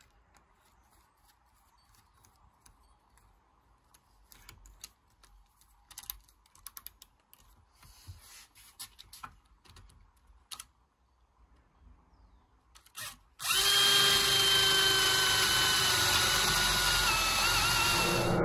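A few faint scattered clicks, then about thirteen seconds in a hand drill starts up and runs steadily, boring a hinge cup hole in a plywood door through a concealed-hinge jig. Its motor whine sags slightly near the end as the bit bites into the wood.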